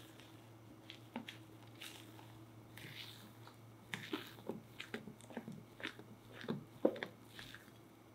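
Spatula stirring thick chocolate sponge batter in a glass bowl: wet squelches and soft scrapes, with light clicks of the spatula against the glass. The stirring is sparse at first and gets quicker and busier about halfway through.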